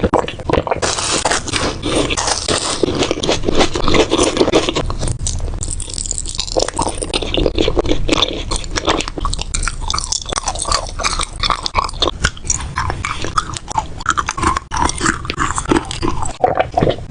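Close-up eating: biting and chewing, with many sharp, irregular crunches and crackles.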